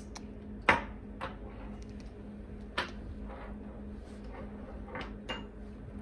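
A few sharp clicks and clattering knocks of hard objects, the loudest about a second in, over a steady low electrical hum.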